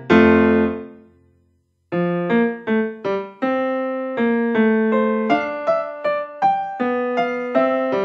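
Background solo piano music. A held chord rings and fades out to silence about a second and a half in, then a new run of evenly paced single notes and chords begins about two seconds in and carries on.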